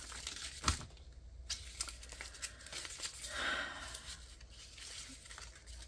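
Clear plastic PET tape being unrolled and handled, its film rustling and crinkling, with a sharp click about a second in and a longer rustle near the middle.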